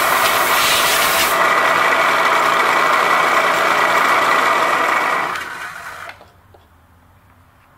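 Milling machine's end mill side-milling a thick workpiece held in a vise: a steady, loud cutting noise with a whine in it. The noise dies away between about five and six seconds in as the cut ends.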